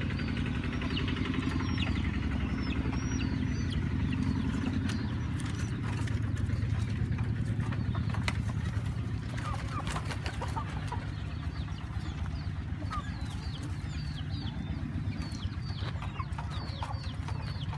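Birds chirping over and over, short high falling calls scattered through the stretch, over a steady low hum.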